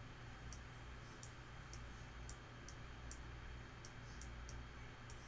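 Computer mouse clicking: about ten light, sharp clicks at irregular spacing, over a faint steady low hum.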